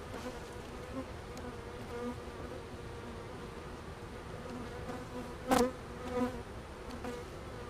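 Honeybees buzzing as a steady, wavering hum from the open hive's crowded frames, with one sharp knock about five and a half seconds in.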